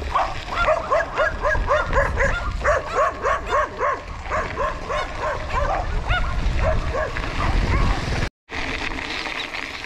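Dogs barking in quick succession, about three or four barks a second, with barks overlapping at different pitches, over low wind rumble on the microphone of a moving bicycle. The barking thins out after about seven seconds, and the sound cuts out for a moment near the end.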